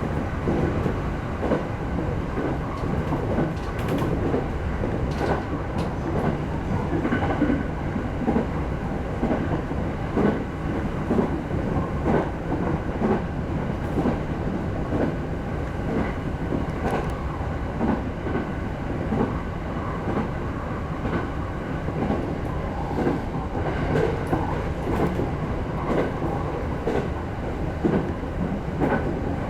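JR East E217 series electric train running between stations, heard from inside the leading car: a steady rumble with the wheels clacking over rail joints at uneven intervals.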